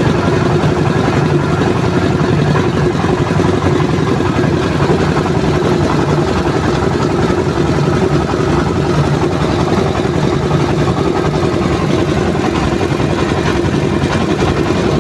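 Engine-driven rice milling machine running steadily, a loud, continuous mechanical drone.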